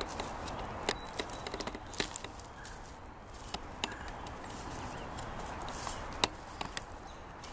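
Footsteps crunching through dry leaf litter and twigs, with scattered cracks and knocks of dead sticks as a long wooden pole is picked up and lifted. The sharpest crack comes about six seconds in.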